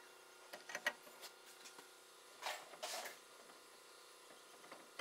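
Faint clicks of metal tools and parts being handled on a wheel hub, with two short rasping scrapes about two and a half seconds in.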